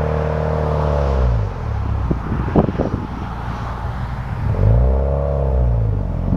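Car engine and exhaust picked up by a camera on the rear deck, pulling under acceleration. Its pitch rises and then drops back, twice. In the quieter stretch between the two pulls there are a few short pops.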